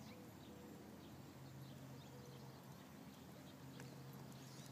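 Near silence: faint hoofbeats of a horse cantering on arena sand, under a low steady hum.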